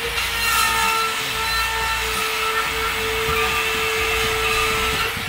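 Cordless drywall cut-out tool (rotary router) running with a steady whine as its bit cuts a round hole in ceiling drywall for a recessed can light.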